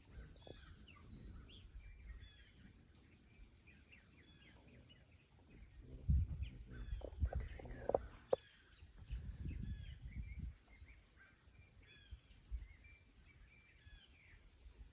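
Several wild birds chirping and singing in short repeated calls, with bursts of low rumbling noise on the microphone in the middle.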